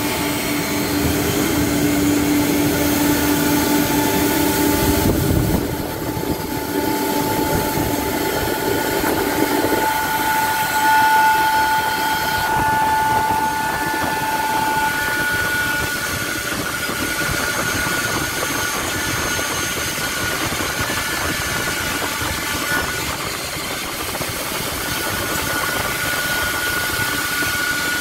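Holztek PRO-R4F four-head CNC nesting router running, its spindles giving a steady whine over dense machine noise as the heads work a wood panel. A lower hum in the noise drops out about ten seconds in, and the whine fades and returns a few times.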